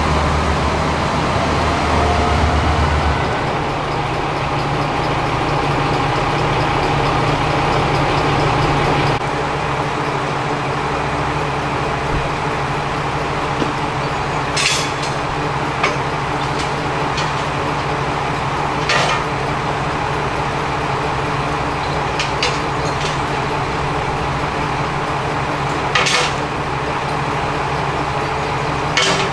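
Diesel railcar engine running at a station, a steady drone with a low throbbing pulse for the first few seconds; about nine seconds in it gives way to a steadier engine hum. A few sharp isolated clicks fall in the second half.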